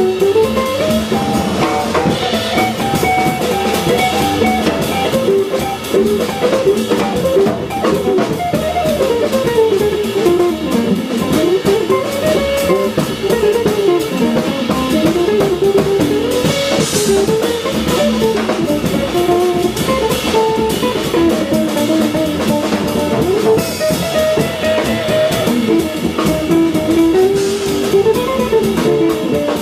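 Live jazz band: a guitar plays a winding single-note line over bass and drum kit, with cymbal splashes about halfway through and again some seconds later.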